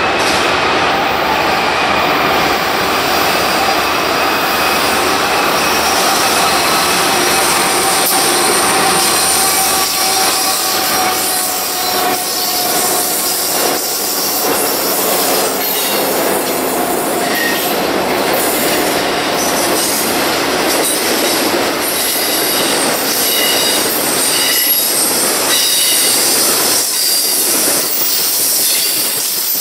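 BNSF intermodal freight train rolling past on curved track: the steel wheels squeal with several high ringing tones over the rumble of the cars. From about halfway through, sharp clicks of wheels over rail joints come thick and fast.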